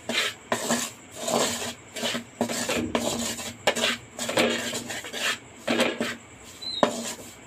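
Wooden spatula scraping and stirring dry wheat flour in a metal kadai, in repeated strokes about twice a second, as the flour roasts in ghee.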